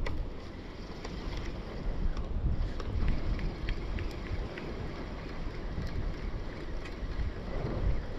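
Wind buffeting the microphone with a low, uneven rumble, over the wash of the sea below the cliff. A few faint ticks come through now and then.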